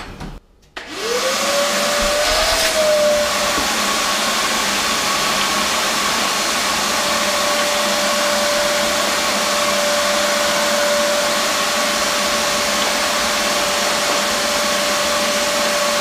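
RIDGID HDC0900 9-gallon wet/dry shop vacuum switched on: its motor spins up within about a second, then runs steadily with a high whine over a loud rush of air.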